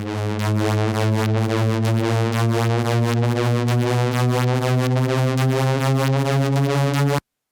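Analog-style synthesizer drone built as part of a Gundam mobile suit start-up sound effect: a low, steady buzzy tone with a fast flutter in its upper range. It cuts off suddenly about seven seconds in.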